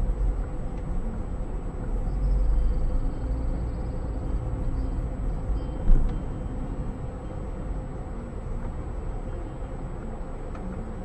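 A car on the move, recorded by a dashcam: a steady low rumble of engine and road, with one short thump about six seconds in.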